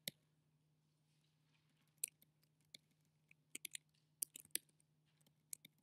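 Faint, scattered clicks of computer keyboard keys, a dozen or so irregular taps in small clusters, over a low steady electrical hum.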